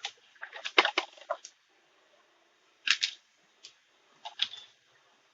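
An electric fan's motor cover being pried off with two flat-head screwdrivers: a series of short clicks and scrapes, in a cluster near the start, again about three seconds in, and near the end.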